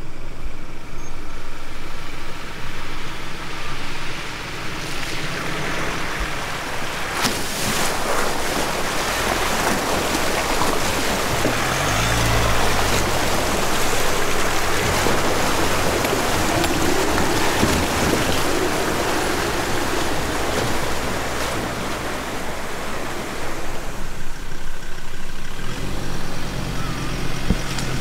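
Ford Ranger Raptor driving through a shallow creek crossing: the engine running under load while water splashes and surges around the tyres, building to a loud rush as it passes by midway. Near the end a second four-wheel drive's engine is heard approaching the water.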